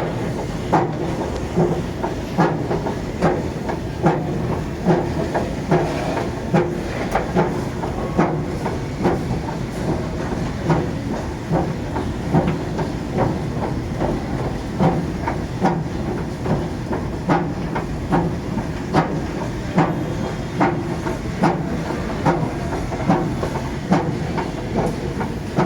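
Schindler escalator running upward with a steady hum, broken by a regular knock about every second: the abnormal noise of a new escalator.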